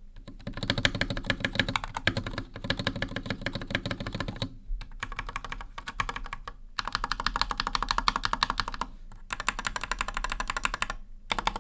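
Rapid typing on a stock, unmodded GamaKay LK67 mechanical keyboard with Gateron Milky Pro Yellow switches and PBT double-shot keycaps, in several quick runs with short pauses between them. The owner finds the stock board a bit hollow and too quiet.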